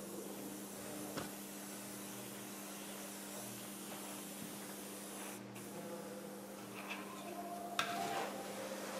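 Airbrush spraying paint onto a plastic scale model aircraft: a steady air hiss that cuts out briefly about halfway through as the trigger is let off, then resumes. A sharp click near the end as the model is handled on its stand.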